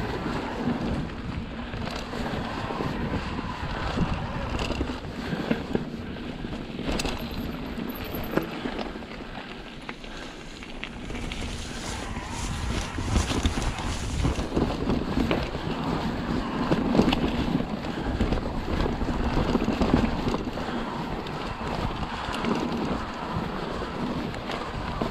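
Riding noise from an electric full-suspension mountain bike on a downhill trail: wind buffeting the action-camera microphone, with frequent knocks and rattles from the bike. It grows louder for a stretch near the middle.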